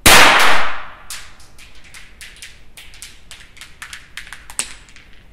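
A primer-powered single-shot pistol firing a 4.5 mm lead ball: one sharp shot at the start that rings on for about a second. Then a run of light, irregular ticks for about four seconds as the ball bounces back off the backstop and rattles across the floor.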